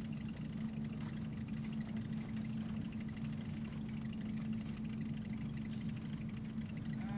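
An engine running steadily: a constant low hum with no change in pitch.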